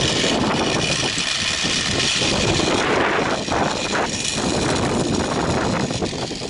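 Loud, steady rush of wind buffeting the microphone of a camera sliding fast along a zip line, easing a little near the end.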